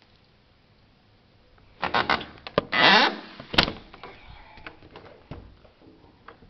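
A window sash sliding in its frame track: a rattle of clicks about two seconds in, a short scraping slide, then one sharp click like a latch catching, followed by a few light ticks.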